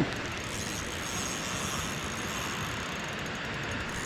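Steady rushing noise of water pouring through the spillway, even and unbroken, with a single brief click right at the start.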